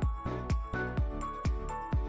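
Background music with a steady beat of about two beats a second over held tones.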